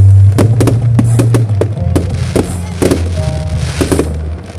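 Fireworks going off in sharp, irregular pops and bangs, heard over loud music with a heavy, sustained bass line.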